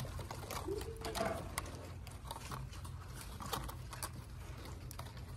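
Thin black ash splints rustling and clicking against one another as they are woven into a basket: a scatter of small sharp ticks over a steady low room hum.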